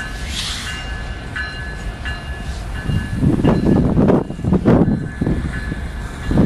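Freight train cars rolling past, with a faint, steady high-pitched ring over a low rumble. From about three seconds in, loud, irregular low thumps and rumbling take over.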